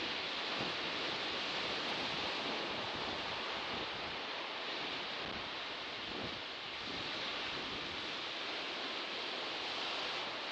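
Sea surf washing onto the shore, a steady hiss of breaking waves that swells and eases gently.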